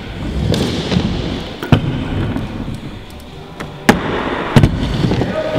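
Stunt scooter wheels rolling over plywood ramps, with three sharp knocks of the scooter hitting the ramp: one just under two seconds in and two close together around four seconds in.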